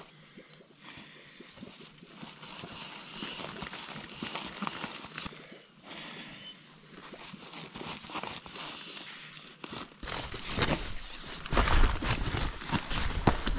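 Crinkly nylon rustling and light knocks of an inflatable sleeping pad being handled and shoved into a tent, faint at first and much louder and closer about ten seconds in.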